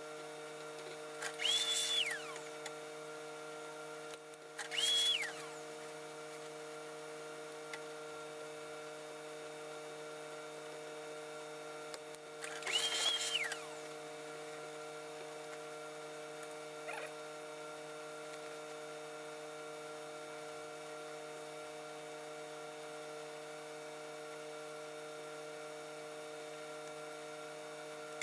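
Large tailor's shears cutting through a mink coat's pelt hem: three cuts of about a second each, near the start, around five seconds in and around thirteen seconds in, each with a high tone that rises, holds and falls. A steady electrical hum runs underneath.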